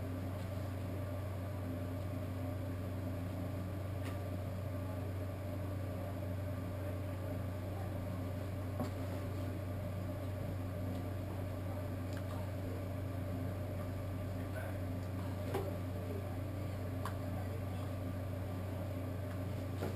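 Steady low machine hum, with a few faint clicks from handling a small plastic applesauce cup.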